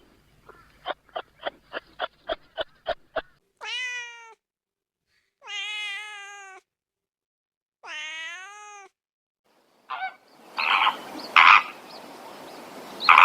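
Animal calls from several clips in turn: a fast series of short calls, about four a second, for the first three seconds; then three long, drawn-out pitched calls about a second and a half apart; then, from about ten seconds in, a noisier stretch with a few loud, harsh calls.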